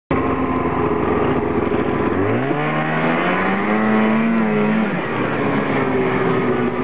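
A motor vehicle engine running, revving up about two seconds in with its pitch rising and wavering, then easing back down around five seconds in and running steadily.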